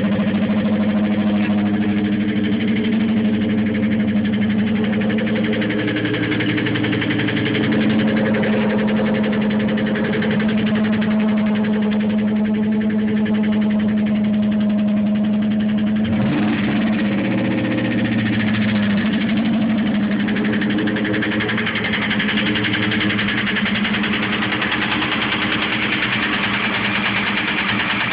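Engine idling with a knocking noise, which the owner takes for piston slap. The engine's pitch dips briefly and recovers about two-thirds of the way through.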